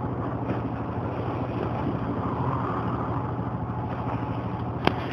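Steady low mechanical hum over a haze of background noise, with one sharp click just before the end.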